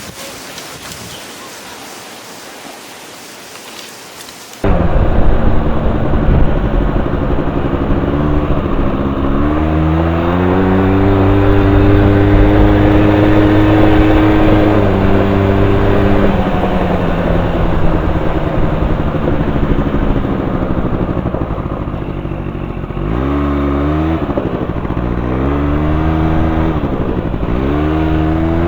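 A steady hiss for the first few seconds, then, cutting in suddenly and loud, the small engine of a Polaris Scrambler 90 ATV running and revving: its pitch climbs and holds, then dips and rises again several times near the end.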